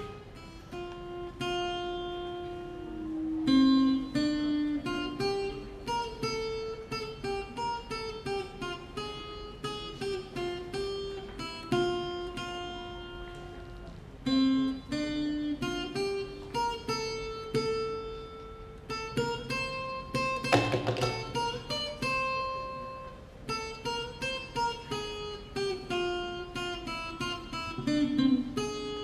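Acoustic guitar picking out a melody one note at a time, with a single drum-and-cymbal hit about two-thirds of the way through.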